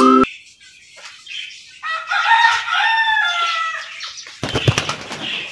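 A rooster crowing once, a drawn-out call of about a second and a half that falls away at the end. Near the end comes a short burst of wing flapping.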